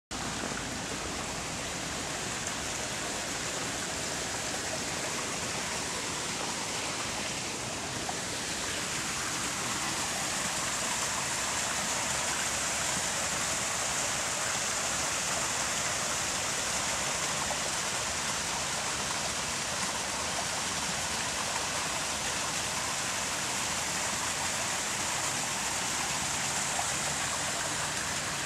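Garden waterfall and stream cascading over rocks: a steady rush of water, a little louder from about ten seconds in.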